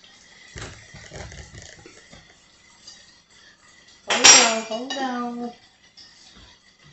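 A metal spatula and a wire rack clinking and clattering against a plate, with one sharp clink about four seconds in.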